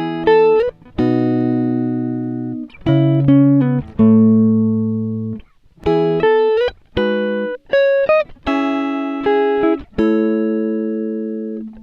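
Background music: a guitar playing picked notes and chords that ring out and fade, with short gaps between phrases and a few sliding notes.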